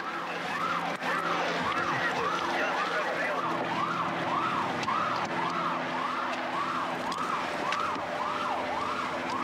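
Police car siren in a fast yelp, its pitch rising and falling about twice a second without a break.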